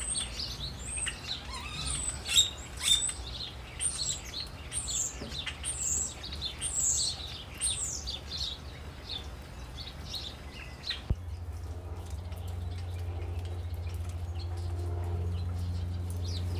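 Many small birds chirping, with quick, high, falling notes overlapping for about the first eleven seconds. Then a click, after which a steady low hum takes over and the chirping fades.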